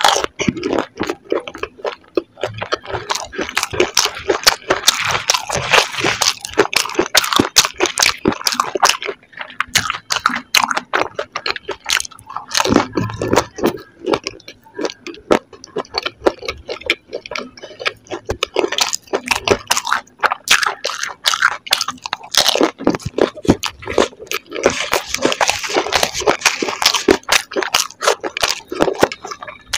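Close-miked crunching and chewing of golgappa (pani puri) eaten whole: crisp hollow fried puri shells cracking between the teeth with wet chewing of a cheese and corn filling, bite after bite. The crunching is densest in two spells, a few seconds in and again near the end.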